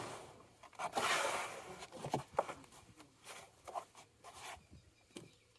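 Hands scraping and churning sand in a plastic drum, mixing in a pond-treatment chemical: gritty rasps, the longest in the first two seconds, then a string of shorter strokes.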